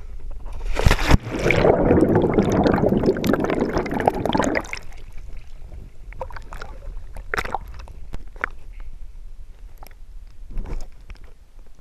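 A person jumping into a swimming pool: a sharp splash about a second in, then several seconds of churning water. After that come lighter, scattered sloshes and splashes at the surface.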